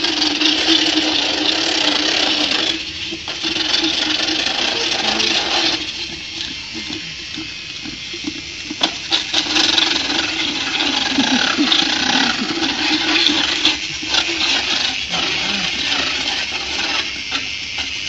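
Motorized equine dental burr (power float) running inside a horse's mouth, a steady motor hum with a harsh grinding hiss as it files the teeth, wavering and pausing briefly a few times.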